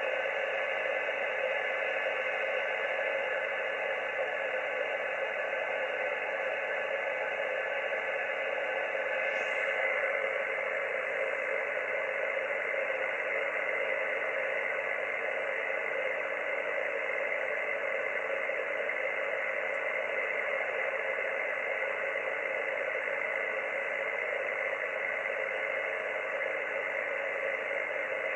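Xiegu G90 shortwave transceiver receiving 80-metre band noise: a steady static hiss limited to the voice range by the receiver's filter, with several faint steady tones running through it.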